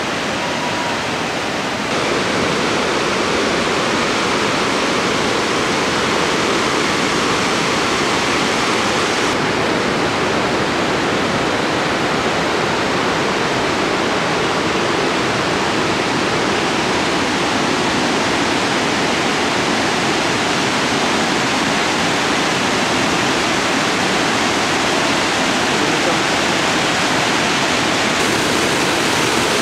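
Steady rushing of large waterfalls, a dense, even wash of falling water that steps up in level about two seconds in.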